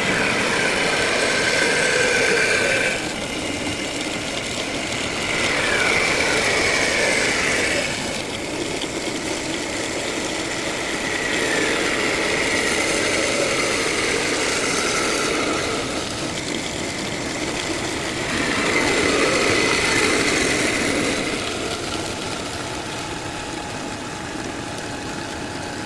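Electric grinder working steel in several passes. The motor's whine drops in pitch as the tool bites and climbs back as it eases off, with louder stretches while it is loaded.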